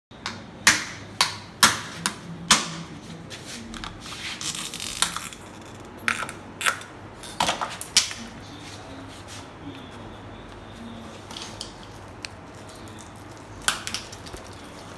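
Hand-handling clicks and knocks of a chrome motorcycle indicator and its fittings as it is fitted: several sharp clicks in the first few seconds, another cluster around the middle and one near the end, with a brief rustle in between.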